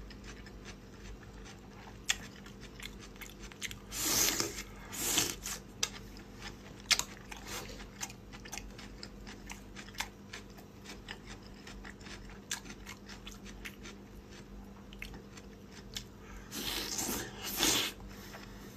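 Close-miked eating: chewing with many small wet mouth clicks, and two louder, longer spells of noisy biting and chewing, about four seconds in and near the end.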